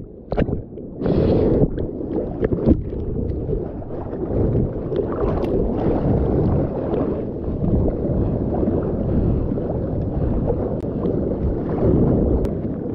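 Seawater churning and splashing close against a GoPro at the water's surface as a surfer paddles a surfboard through whitewater. Several sharp splashes come in the first two seconds, then a steady rush of water with the splash of arm strokes.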